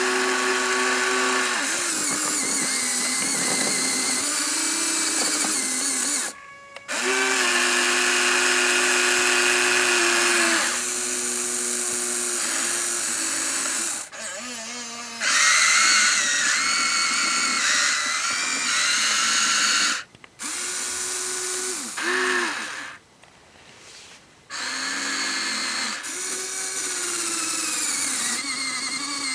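Huina 1593 RC excavator's small electric motors and gearboxes whining in runs of a few seconds, with short pauses between them as different functions start and stop. The pitch dips and rises as each motor starts, stops and takes load.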